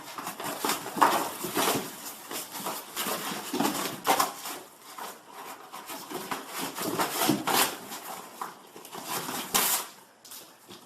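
Irregular clattering and scraping of hard objects, with louder knocks about a second in, around four seconds and around seven and a half seconds, thinning out near the end.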